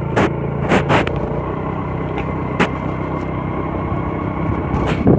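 A small vehicle's engine runs steadily with road noise while riding, broken by several short sharp knocks.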